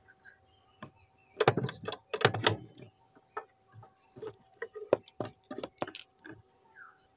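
Irregular clicks, taps and rustles of hands working cloth and thread at a sewing machine, with the loudest knocks clustered between about one and a half and two and a half seconds in. A faint steady hum runs underneath.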